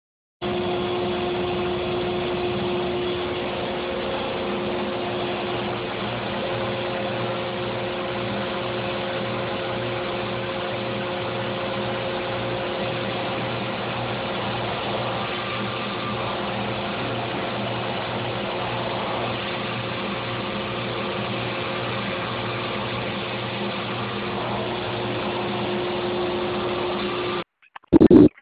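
EZ CNC Model 4896 CNC router running: a steady machine drone with a couple of steady tones, which cuts off abruptly near the end.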